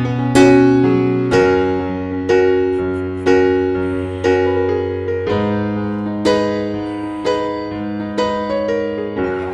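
Background music: a gentle, slow piano melody, a note or chord struck about once a second and fading away, over a held bass.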